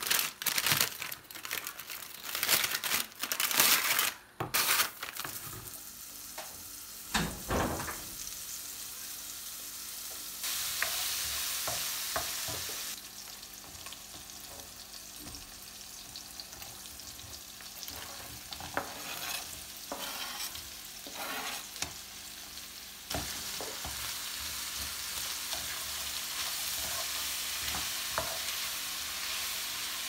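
Food sizzling in a frying pan while being stirred with a utensil, with clattering knocks of the utensil against the pan over the first few seconds. The sizzle grows suddenly louder about ten seconds in, falls back a few seconds later, and rises again in the last third.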